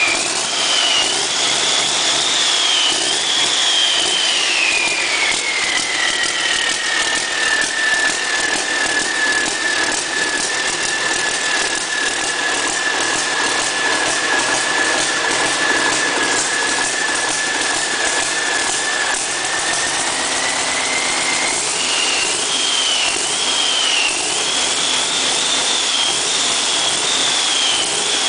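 Cummins ISX inline-six diesel running on an engine stand, revved up and down. A high whine rises with each rev: up high in the first few seconds, settling to a steady lower pitch for a long stretch, then a few quick blips about two-thirds of the way through, and held high again before dropping near the end.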